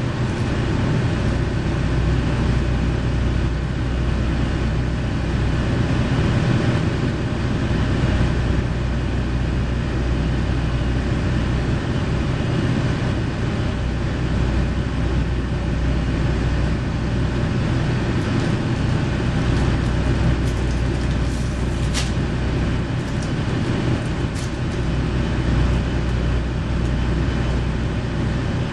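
JR Shikoku KiHa 40 series diesel railcar's engine idling steadily while the train stands waiting to depart, heard from inside the car. A couple of sharp clicks come about two-thirds of the way through.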